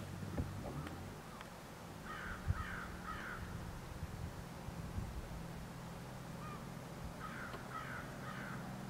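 A bird calling in two short series: three calls about two seconds in, then three or four more near the end.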